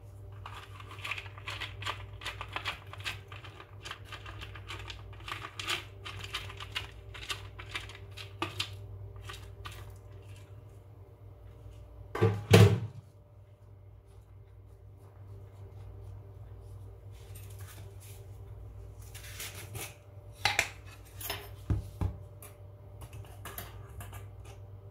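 Nuts dropped by hand onto a baked loaf in a metal pan, a quick run of small clicks for the first ten seconds or so. There is one heavy thump about halfway through, a few more clicks near the end, and a low steady hum underneath.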